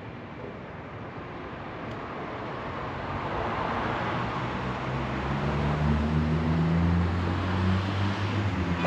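Road traffic: a motor vehicle's noise growing steadily louder over several seconds, with low steady tones joining about halfway through.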